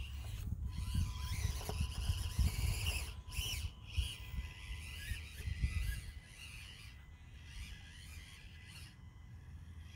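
Whine of an Axial SCX24 mini crawler's small electric motor and gears as it climbs a rock face, rising and falling with the throttle. Gusty wind rumbles on the microphone for the first six seconds or so, then eases.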